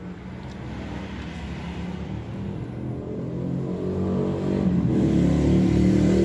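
A motor vehicle engine running and growing steadily louder.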